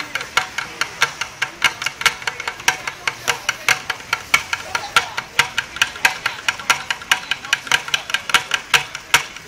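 Bucket drumming: drumsticks striking plastic buckets in a fast, steady rhythm of sharp hits.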